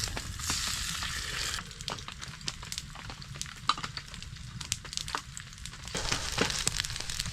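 Sliced sucuk sizzling as it fries over a wood fire, with scattered pops and crackles. The sizzle drops away after about a second and a half and comes back near the end.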